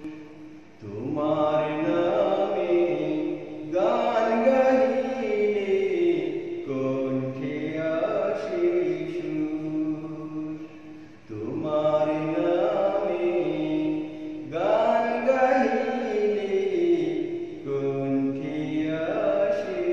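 A voice chanting a Bengali Islamic devotional song in long, gliding phrases, with a few short pauses between them.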